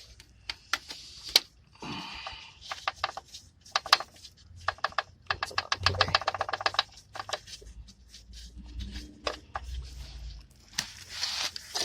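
Ratchet wrench clicking in quick runs, the longest about five seconds in, with scattered clinks of metal tools.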